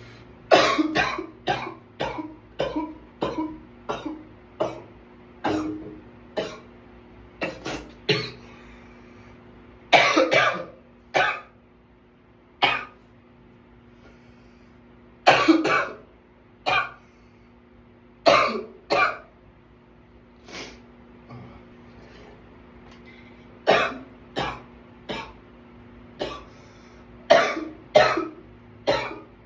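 A man coughing in a runaway fit: a fast run of about ten coughs at the start, then clusters of two or three coughs spaced a few seconds apart.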